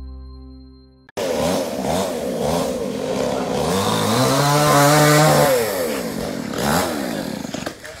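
Chainsaw cutting the branches of a fallen tree, revving up and down again and again, climbing to a high steady run for a second or so about four seconds in, then dropping back with one more rev near the end. Before it starts, the last ringing notes of a chime jingle die away.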